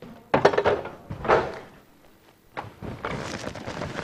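Knocks and clatter from kitchen items and the plastic food-processor bowl being handled, followed from about two and a half seconds in by a softer, continuous crackling patter.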